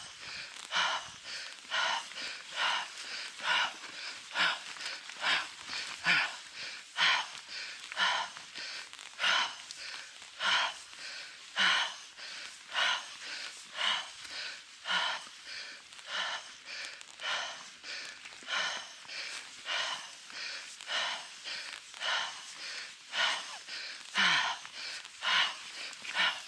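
A mountain biker breathing hard and fast in a steady in-and-out rhythm, panting from the exertion of a long uphill climb.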